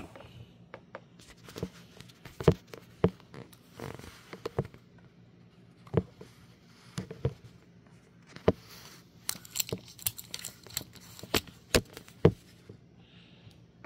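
Hands handling brass rifle cartridges: irregular sharp clicks and taps, with a couple of brief rustles in the middle.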